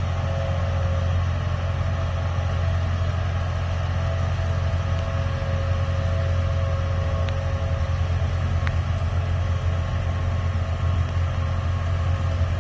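Vehicle engine running steadily: a low, even rumble with a fainter steady hum above it.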